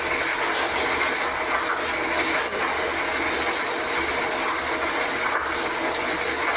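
Laundry machine running with a steady mechanical rumble and hiss.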